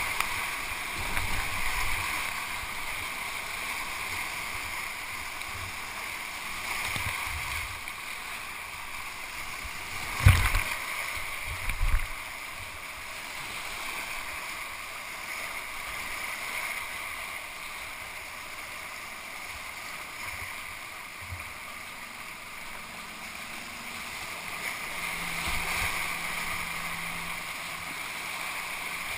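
Whitewater rapids rushing steadily around a kayak paddling down through them, with two sharp thumps about ten and twelve seconds in.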